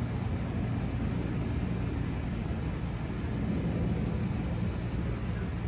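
Steady low rumble of distant vehicle noise, with a faint hum running under it.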